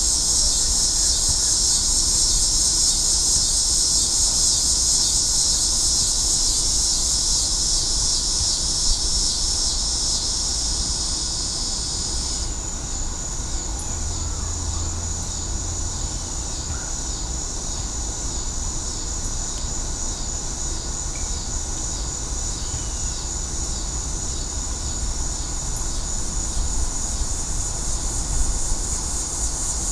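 Dusk insect chorus: a dense, pulsing high trill. About twelve seconds in, part of the chorus stops, leaving a thinner high trill. A steady low rumble runs underneath.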